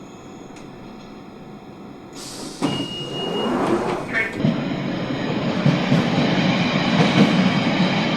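A quiet steady hum, then about two seconds in a London Underground Central line tube train's running noise comes up suddenly and grows loud, with a brief high squeal from the wheels about three seconds in and a steady rumble of wheels on rails through the rest.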